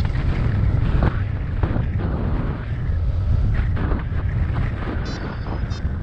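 Wind buffeting the microphone: a heavy, uneven low rumble with a rushing hiss. Near the end come two brief high-pitched chirps.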